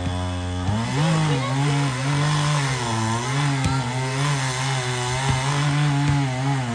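Chainsaw running under load as it cuts into a pine trunk during felling. Its engine pitch holds steady for a moment near the start, then keeps dipping and recovering as the chain bites into the wood.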